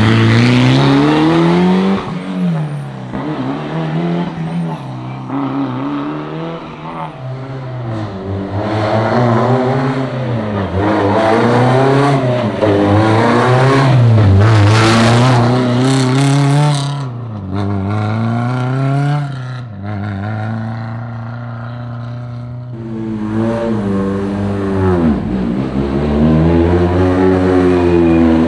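Rally car engines revving and accelerating, the pitch climbing and dropping again and again through gear changes. There is a quieter, steadier spell in the middle before the revs build again. The cars are driven hard to heat their tyres and brakes.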